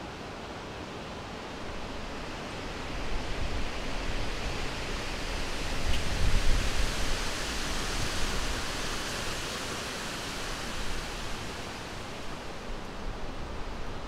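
Wind blowing steadily, swelling into a gust about halfway through and then easing off.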